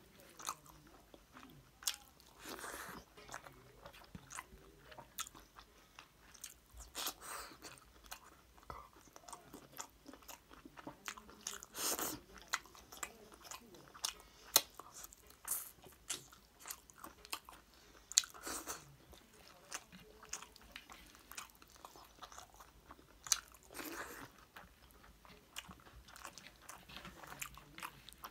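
Close-miked chewing of hand-eaten rice with chicken curry and gravy, with irregular wet mouth clicks and smacks; a few sharper clicks stand out near the middle.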